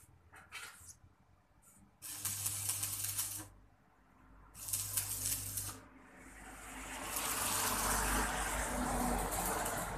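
Electric arc welding: two crackling, hissing bursts of the arc, each a little over a second long, with a low electrical hum under them, after a few faint short sputters. From about six seconds in a steadier rushing noise builds up and stays loud.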